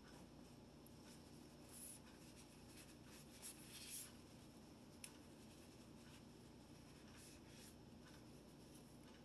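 Near silence with faint scratching and rubbing sounds, loudest about two and four seconds in, and one small click about five seconds in.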